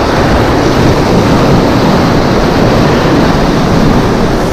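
Waves breaking and washing through shallow surf, a loud continuous rush, with wind rumbling on the microphone.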